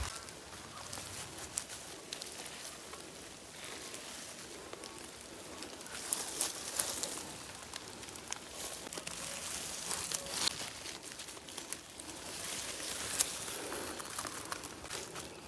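Light rain pattering on forest foliage, with scattered crackling and rustling of leaves and undergrowth.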